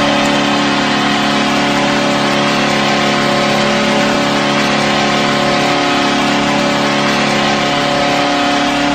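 Nashville Predators' hockey goal horn sounding one long, steady, unbroken blast.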